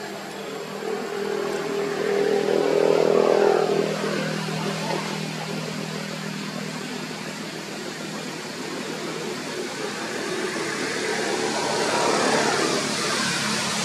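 A motor vehicle's engine running. It swells louder with a sweep in pitch about three seconds in and again near the end, as if vehicles pass by.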